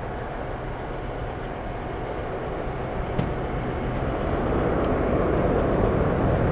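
Boeing 787-9 jet engines at takeoff power as the airliner climbs away: a steady, low, rushing jet noise that swells louder about two-thirds of the way through.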